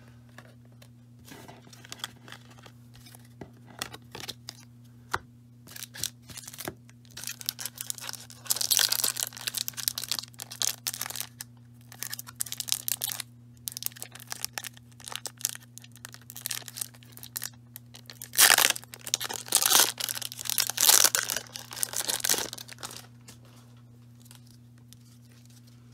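Foil wrapper of a 1994 Fleer Ultra football card pack being torn open by hand, crinkling and ripping in bursts. It is loudest from about eight to eleven seconds in and again from about eighteen to twenty-two seconds in.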